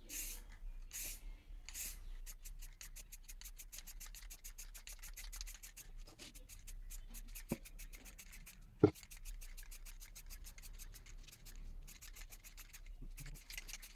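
Aerosol spray can of glossy black paint: a few short hisses of spray about a second apart, then the can being shaken hard, its mixing ball rattling in quick even ticks. Two sharp clicks come near the middle.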